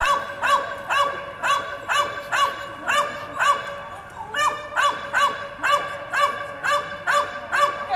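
A dog barking in a steady string of short, high yips, about two a second, with a brief pause about four seconds in. The barks ring on between yips in a large, echoing hall.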